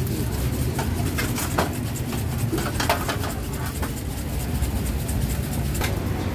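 Street-market background noise: a steady low rumble with scattered sharp clicks and clatter, most of them in the first three seconds.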